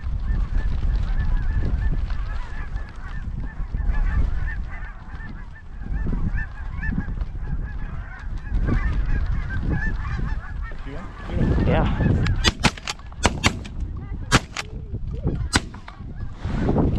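A flock of snow geese calling, many high, yelping calls overlapping, over a heavy rumble of wind on the microphone. In the last few seconds several sharp cracks cut through the calling.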